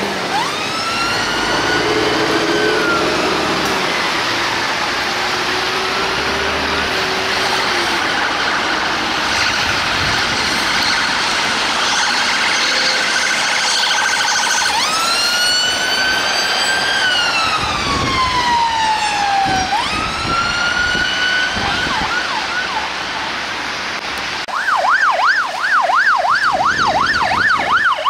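Emergency vehicle siren on a passing UK response vehicle: slow wail sweeps rising and falling, switching near the end to a fast yelp of about three cycles a second, over road traffic noise.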